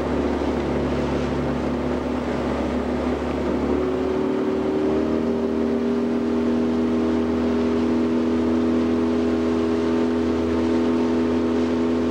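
Motorboat engine running steadily, its pitch stepping up about four seconds in and again a second later as it speeds up, over a steady hiss.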